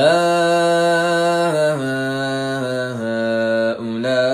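A male Quran reciter's voice chanting in melodic tajweed, holding long, drawn-out notes that step down in pitch twice, with a brief break near the end before the voice rises again.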